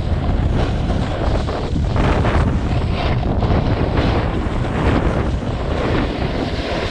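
Loud wind buffeting the microphone during a fast snowboard run, a steady low rumble with the board's edges scraping and chattering over the snow.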